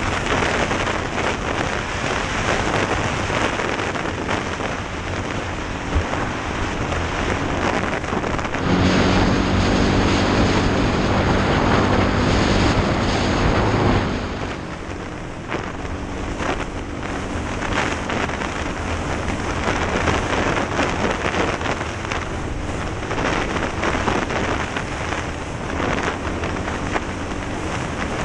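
Off-road motorbike engine running at speed under heavy wind rush on a helmet-mounted camera. From about nine seconds in, the engine holds a steady high pitch and gets louder for some five seconds, then drops back under the wind noise.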